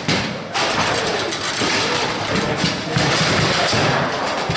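Foosball table in play: rods being slid and rattled and the ball knocked about, over a steady noisy din.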